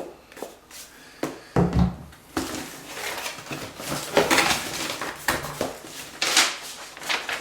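A cardboard parcel being handled and opened: a few sharp knocks and a low thump, then a stretch of rustling packaging with louder swells.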